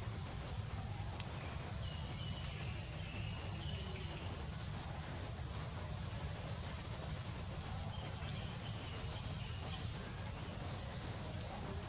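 Outdoor insect chorus: a steady high-pitched drone with a repeated short rising chirp, about two a second, from a couple of seconds in until near the end, over a low rumble.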